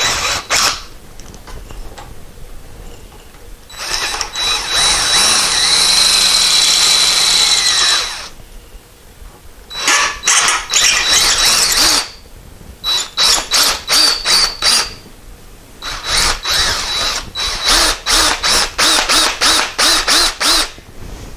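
Electric drill with a quarter-inch bit drilling out the rivets that hold a shift-linkage bushing. It runs for about four seconds with a steady high whine, then for about two seconds, then in short on-off bursts, about two a second, near the end.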